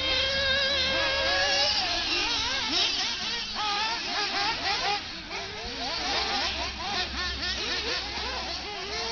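Several radio-controlled off-road buggies racing, their motors whining in overlapping pitches that keep rising and falling as they speed up and slow down.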